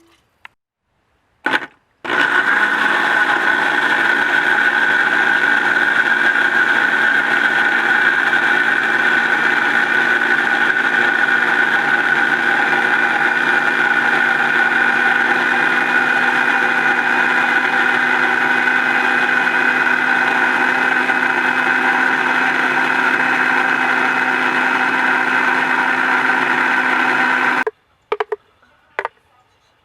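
Electric blender running steadily, blending homemade mayonnaise from egg, oil and lemon. It switches on abruptly about two seconds in and cuts off near the end, with a few short knocks before and after.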